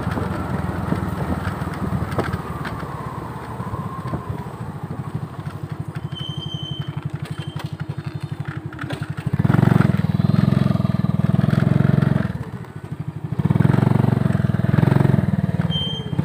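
Small motorcycle engine running while riding, with a steady pulsing drone that grows louder in two stretches in the second half.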